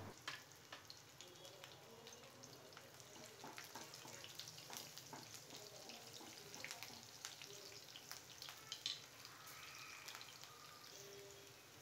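Faint crackling and small pops of chopped garlic and green chillies frying in hot oil in a kadhai, with occasional light scrapes of a wooden spatula.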